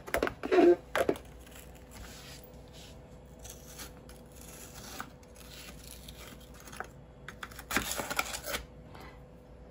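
Metal spoon scraping and clinking against frozen papaya chunks in a plastic container: a few short scrapes about a second in, then quieter faint clicks, and a cluster of louder scrapes near the end.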